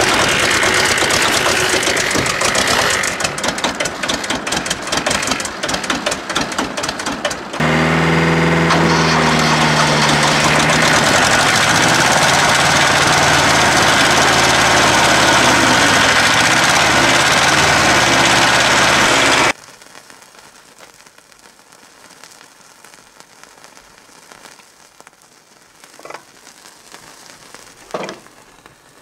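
Compact tractor's diesel engine running roughly with a knocking beat, then running more steadily at higher speed from about seven seconds in. After about twenty seconds it cuts to a faint hiss with a couple of clicks, as a flame is held to another diesel engine's intake manifold to preheat it for a cold start.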